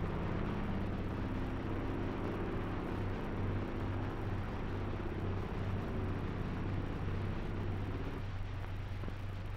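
Steady drone of a propeller aircraft's engine over the hiss and low hum of an old film soundtrack; the drone drops away about eight seconds in.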